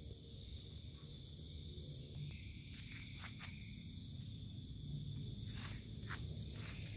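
Steady high-pitched chorus of night insects over a low rumble, with a few soft footsteps on sandy dirt from about two seconds in.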